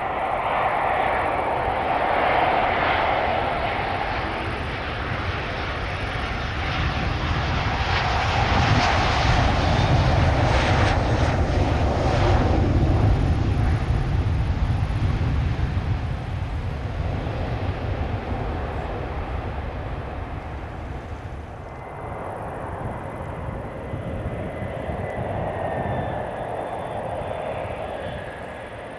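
Boeing 787-8 jet engines on final approach, with a steady whine and rumble, growing to a loud, deep rumble as the airliner touches down and rolls out along the runway. About three-quarters of the way in the sound changes to a quieter Embraer E175 regional jet on approach, with a faint whine rising in pitch near the end.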